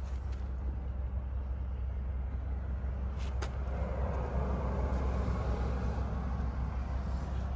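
Steady low rumble of a running vehicle engine. Two light clicks come a little over three seconds in, and a rushing noise swells from about four seconds.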